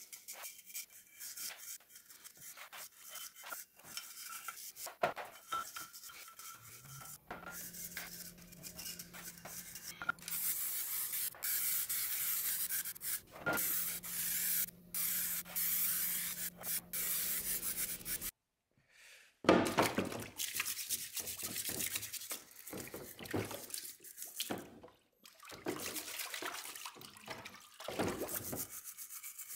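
Metal scraper scratching softened paint off a Brembo six-piston brake caliper for the first several seconds, then a long steady aerosol-can hiss with a few short breaks. Over the last third the caliper is scraped in a tub of water, with splashing and dripping.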